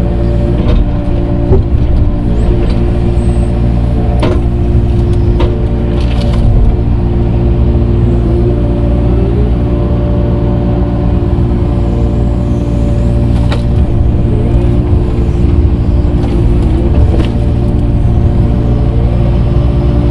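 Engine of an earthmoving machine grading dirt, running steadily at working revs. A few sharp clanks come through, and several times the pitch dips briefly and recovers as the machine takes load.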